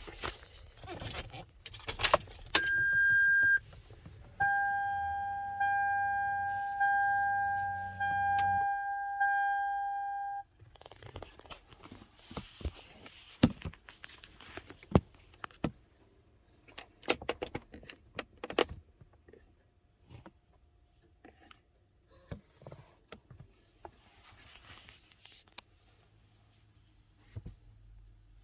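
Clicks and rattling from handling, then an electronic chime that sounds steadily for about a second, pauses, and then pulses about once a second for some six seconds before stopping abruptly. Scattered clicks and handling noise follow and thin out toward the end.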